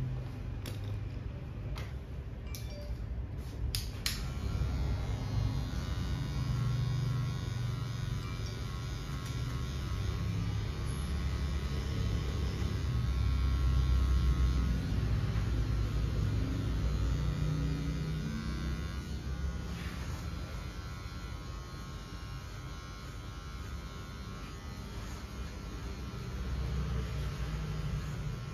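Electric hair clipper running steadily as it cuts the hair at the side of the head. A few sharp clicks come before the steady buzz, which starts about four seconds in.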